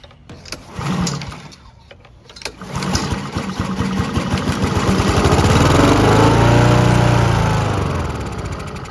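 Honda HRR216 lawn mower's small single-cylinder engine being pull-started. After a short pull about a second in, it catches and runs, its pitch rising and then falling away as it slows.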